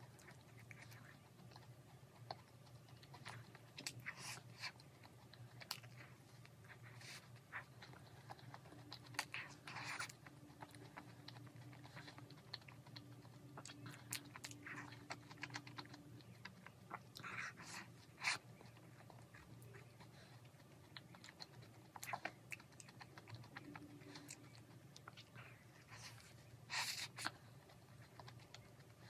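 Close-up eating sounds: a crisp cookie-topped cream puff and a strawberry being bitten and chewed, with scattered small crackly crunches and wet mouth clicks, a few louder crunches standing out. A faint steady low hum runs underneath.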